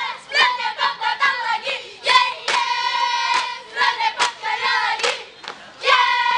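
A group of schoolgirls chanting a scout yell in unison, in short sung phrases, with several sharp knocks in time with the chant.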